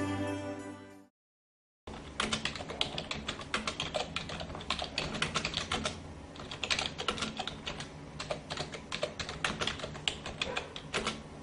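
Rapid, irregular computer-keyboard typing clicks, used as a sound effect for text being typed onto the screen. It starts about two seconds in, after a short silence, and follows choir music fading out in the first second.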